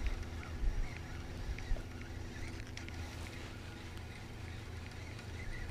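Quiet outdoor ambience on a fishing boat: a steady low rumble with a faint hum that fades about halfway through, and scattered small bird chirps.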